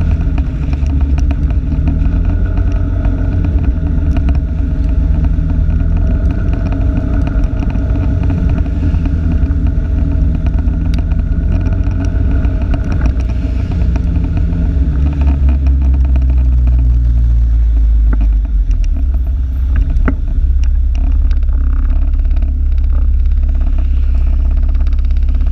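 Vehicle on the move heard from a camera clipped to its rear-view mirror: a steady heavy rumble with engine tone, and scattered light clicks. The engine note drops somewhat past the middle as the vehicle slows.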